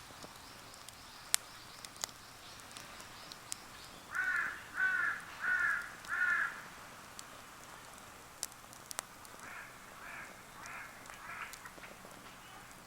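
A crow cawing four times in quick succession, then four fainter caws a few seconds later. Sharp crackles from a wood campfire pop now and then throughout.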